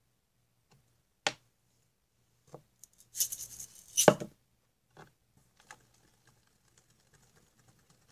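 A mixing tool knocking and scraping against a plate while stirring a runny shower-gel slime: a sharp click about a second in, a scrape ending in a loud knock about four seconds in, a few lighter knocks, then faint quick sticky ticks.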